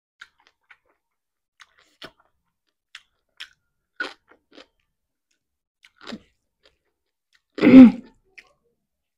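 Close-miked chewing and soft crunching of a hand-eaten meal of deep-fried fish and rice, in scattered short crunches. Near the end, one much louder short thump stands out.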